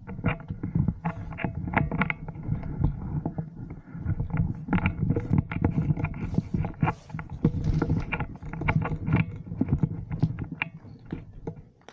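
Handling noise from an action camera worn against an airsoft player's vest and rifle as he moves: a steady rumble with irregular knocks, scrapes and rustles of gear and clothing against the microphone.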